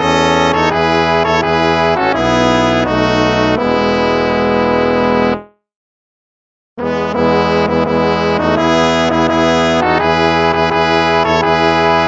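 Instrumental hymn music in slow, sustained chords. It stops about five and a half seconds in, and after about a second of silence the music starts again.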